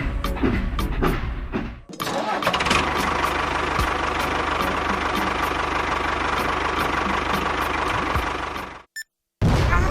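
A small engine or motor running steadily, starting abruptly about two seconds in and cutting off suddenly near the end, with a brief silence before another loud burst.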